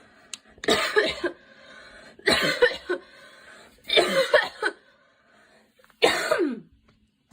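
A girl coughing in four bouts about a second and a half apart, each bout two or three quick coughs; the last trails off with a falling pitch.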